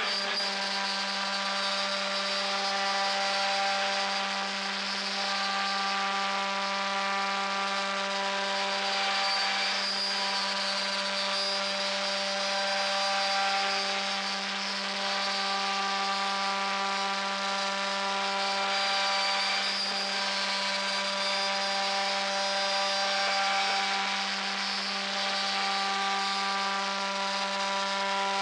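CNC router spindle running with a steady whine while its cutter mills a slot through MDF, with a gritty cutting noise over the whine.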